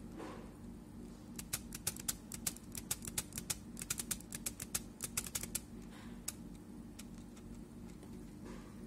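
Typing on a computer keyboard: a quick run of key clicks starting about a second and a half in and stopping just past the middle, over a steady low hum.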